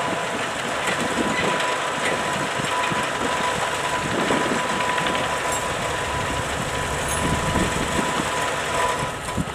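A diesel engine running steadily, with a low rumble, a thin steady whine and light knocks. The sound drops near the end.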